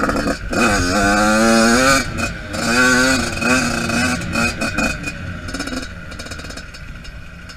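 Yamaha YZ85's two-stroke engine heard from on board while riding: it revs up hard about half a second in, holds high with rises and dips in pitch, then eases off and falls quieter from about five seconds in.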